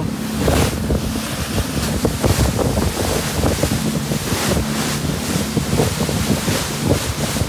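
A fast boat under way at speed: wind buffeting the microphone and water rushing in the wake, over the steady low hum of its engines.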